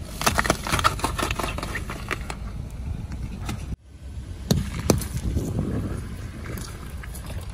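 Car tyre rolling over a row of green apples, crunching and cracking them one after another. After a sudden cut near the middle, it rolls over oranges with two sharp cracks and then a wetter crushing as they split and spill juice.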